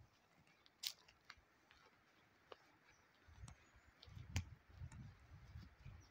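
Faint footsteps crunching on a dirt forest path, with scattered light clicks. An uneven low rumble comes in about three seconds in.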